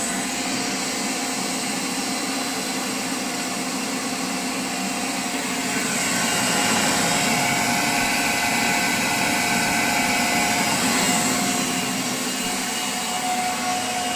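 Vintage Goblin vacuum cleaner switched on and running steadily, its motor and fan humming and whooshing, a little louder from about six seconds in.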